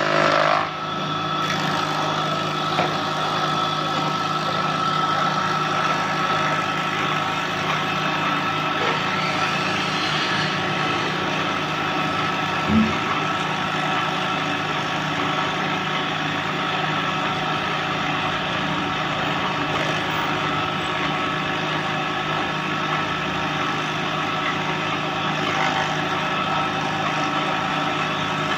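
Wood planer running with a steady, even hum, a little louder in the first second and then settling. A single short knock comes about thirteen seconds in.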